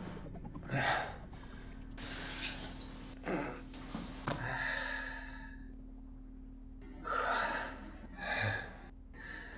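A man breathing hard in a series of gasps and breaths, about seven of them, with a faint steady hum underneath.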